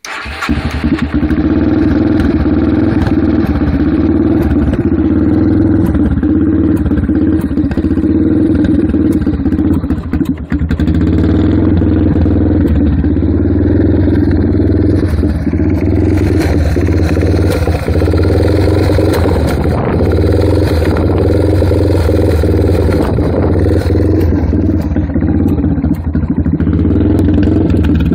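Yamaha TT-R230's single-cylinder four-stroke engine idling roughly, unsteady with a brief dip about ten seconds in, along with the sucking sound the owner is trying to trace.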